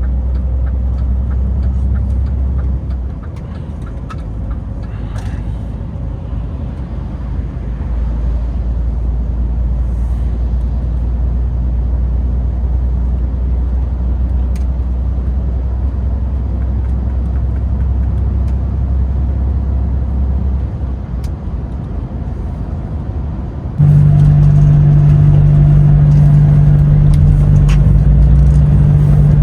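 DAF XF truck running on the road: a steady low engine and road drone that eases briefly twice. About 24 seconds in it suddenly turns much louder, into a strong steady hum.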